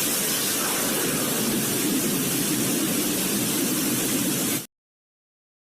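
Steady hiss of static-like white noise that cuts off abruptly near the end, leaving dead silence.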